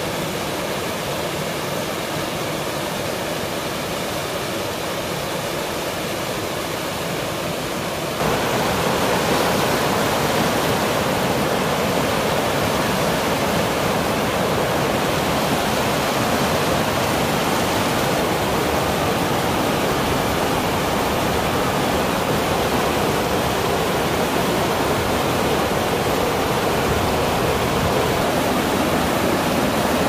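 Rushing water of a rocky mountain river tumbling over rapids, a steady rush; about eight seconds in it jumps louder and fuller.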